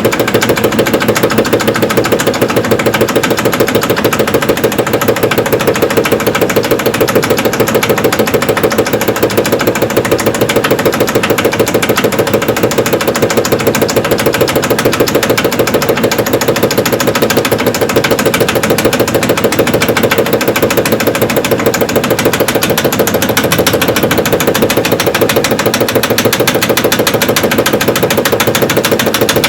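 Evrika-3M semi-automatic washing machine spinning its stainless-steel drum, which is belt-driven by a two-speed induction motor, with a rapid, even knocking that keeps up throughout: a bearing knocking under spin.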